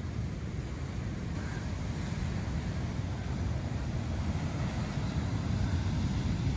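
Steady low rumble of wind and Pacific surf at a rocky beach, growing slightly louder toward the end.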